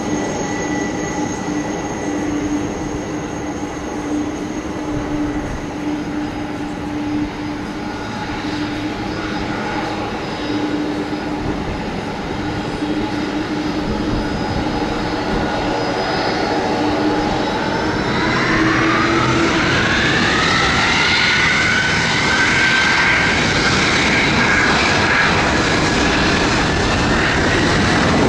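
McDonnell Douglas MD-11F freighter's three jet engines running at low power, then spooling up about two-thirds of the way through. A whine rises in pitch, settles at a steady higher pitch and grows louder as takeoff power is set.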